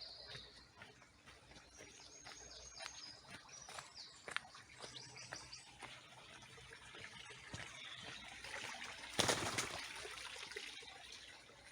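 Outdoor ambience of small birds chirping in short high calls over a faint trickle of water, with scattered light clicks. About nine seconds in, a brief rush of noise, the loudest sound, rises and fades.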